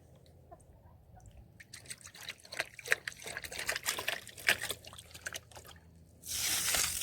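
Water poured from a flimsy plastic ice-cream bucket, splashing and dripping irregularly, then a louder steady rush of pouring near the end.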